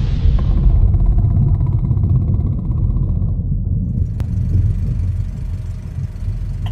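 Deep, loud rumble of a logo-intro sound effect, slowly fading, with a faint tick about four seconds in.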